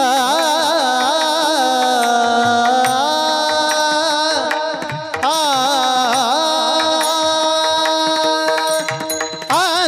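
Marathi kirtan singing: a male voice carries a high, ornamented melody, holding long notes that waver and glide, over a steady drone and pakhwaj drum strokes.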